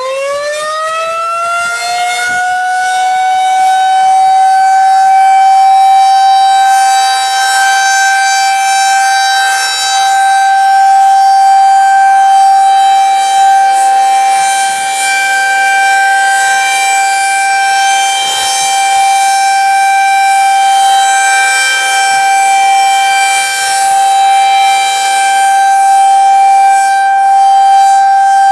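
Federal Signal 2001-SRNB electromechanical outdoor warning siren sounding its steady Alert tone for a monthly test. It finishes winding up in the first few seconds, then holds one loud, steady high pitch.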